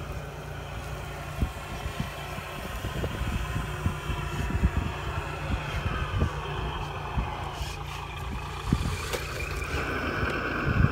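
Wind buffeting the microphone, with a low rumble and scattered thumps, over the faint whine of radio-controlled scale trucks' electric motors rising and falling as they drive. A steadier whine comes in near the end.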